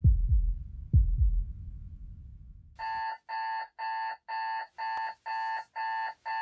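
Two low, heartbeat-like double thumps about a second apart, fading out. Then, about three seconds in, an electronic alarm clock starts beeping, about eight evenly spaced beeps at nearly two a second.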